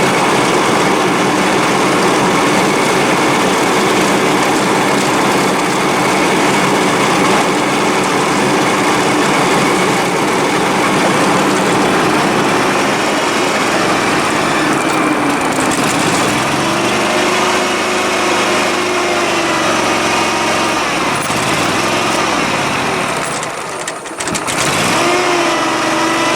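Engine of a Dixon 72-inch lawn mower running steadily. A little past the middle its pitch drops and settles lower, and near the end it dips briefly before picking back up.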